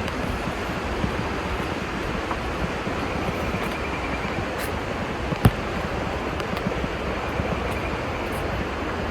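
Steady rushing noise with the full, even hiss of falling water or wind, and one sharp click about five and a half seconds in.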